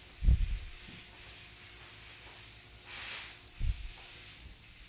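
Handling noise as a wooden pumping handle is fitted back onto an air-powered dart projector's barrel: a dull low knock right at the start, a brief rustle about three seconds in, then a second dull knock.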